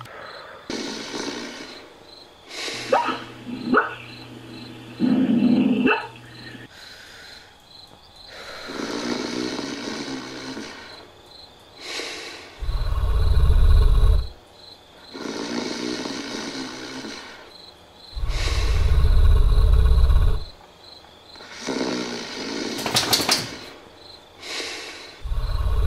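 Snoring: a loud, deep rumbling snore about every six seconds, with softer breaths between. In the first few seconds come a few short dog-like yelps and whines.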